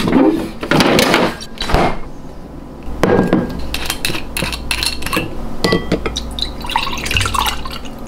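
Kitchen handling noises as a glass wine bottle is taken from a fridge door shelf: rustling and rattling first, then a knock and a series of glassy clinks and taps as the bottle and a drinking glass are handled, with white wine starting to pour into the glass near the end.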